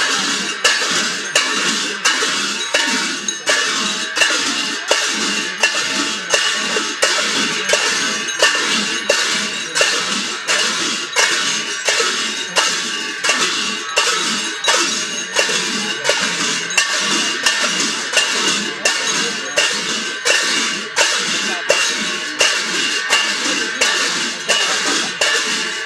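Hand cymbals clashing in a steady beat, about three strokes every two seconds, each ringing on, with drumming under them: the music for a Rai ritual dance.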